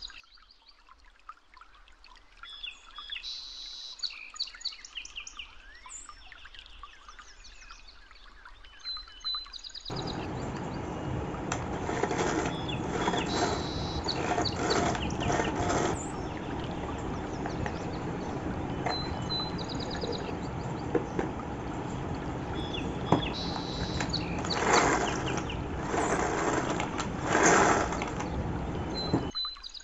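Hands handling a plastic pull-string vegetable chopper, with plastic knocks and rasps as the lid is fitted and the cord pulled. A steady background noise comes in about a third of the way through, and small birds chirp in the background.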